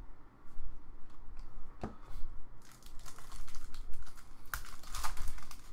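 Trading cards and their plastic packaging being handled: scattered light clicks, then a dense run of crinkling and crackling in the second half.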